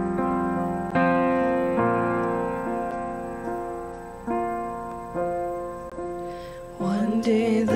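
Stage keyboard playing piano chords, each struck and left to fade, in an instrumental break of a worship song. Voices come back in singing near the end.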